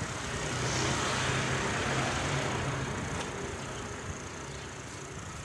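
A motor vehicle's engine running with a steady low hum, under a rush of road or wind noise that is loudest in the first three seconds and then eases.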